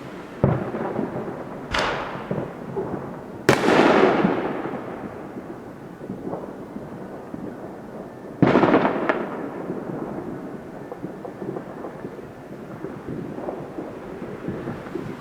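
Fireworks going off: several sharp booms with long rolling echoes, the loudest about three and a half seconds in and another strong one about eight and a half seconds in, over a continuous background rumble of more distant bangs.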